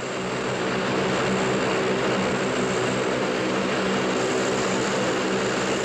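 Lockheed C-130 Hercules turboprop transport in flight, its four propeller engines running with a steady low hum over a rushing noise.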